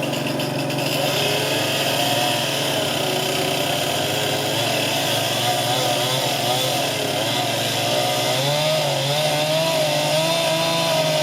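Chainsaw engine running steadily, its pitch wavering up and down as it is worked. A lower engine hum runs underneath and rises in pitch about eight seconds in.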